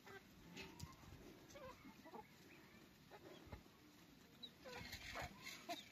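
Chickens clucking faintly, short scattered clucks with a small cluster near the end.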